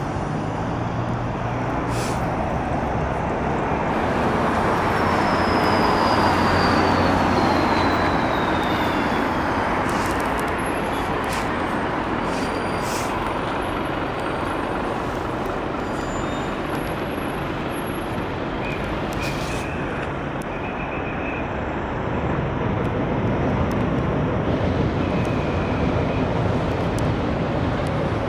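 Steady road traffic rumbling past. It swells as a vehicle goes by about six seconds in, with a faint falling whine, and swells again near the end.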